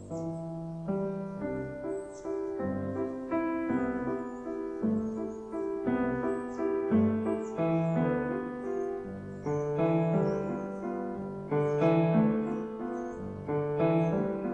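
Piano music: a tune of chords and single notes, each struck and left to ring, a new one every half second to a second.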